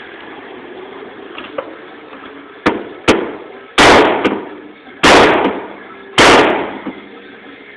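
Hammer blows on the 1998 Chevy Cavalier's crumpled sheet-metal body panel: two lighter taps a little before halfway, then three heavy strikes about a second apart, each dying away briefly.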